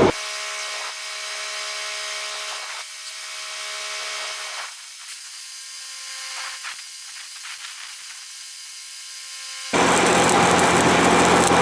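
Welding on a steel tool bar. A quieter stretch of hiss with steady hum tones is followed, near the end, by an abrupt, much louder, steady crackling hiss over a low engine hum.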